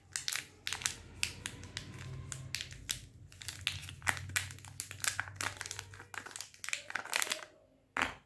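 Packaging wrapper crinkling and crackling in quick, irregular bursts as it is handled and torn open by hand. The crackling stops near the end, with a single last crackle.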